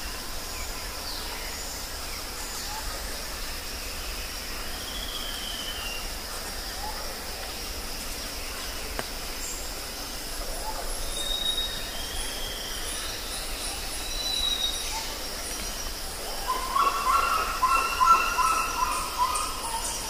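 Tropical forest ambience: a steady high insect drone with scattered short bird whistles and falling slurred calls. Near the end a loud series of quick, repeated bird notes stands out above the rest.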